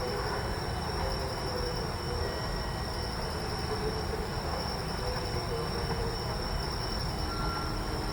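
Low, steady rumble of a Yoro Railway electric train pulling out of the station, with insects chirping steadily in a high, evenly pulsing drone.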